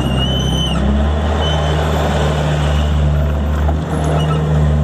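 Perkins diesel engine of a JCB 190 skid steer loader running steadily, with a brief high squeal in the first second.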